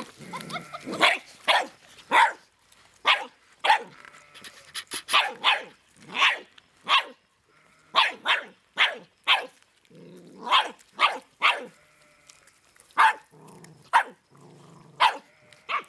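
A Belgian Shepherd puppy barking over and over in short, sharp, high barks, about one or two a second, with a few low growls between them.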